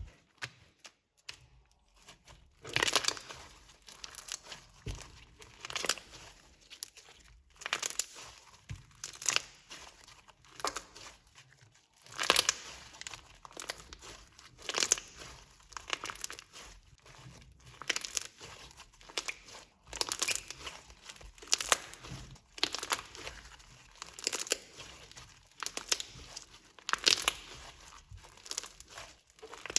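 Hands working clear slime mixed with glitter: sticky crackling in repeated bursts, roughly one a second.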